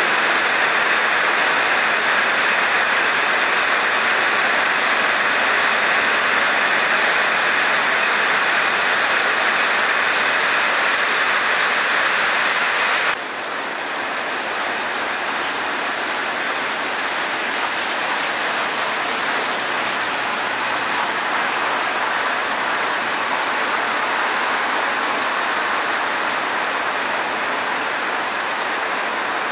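Heavy rain pouring onto wet asphalt as a steady, dense hiss. About 13 seconds in it cuts abruptly to a quieter, softer rain falling on leafy trees and bushes.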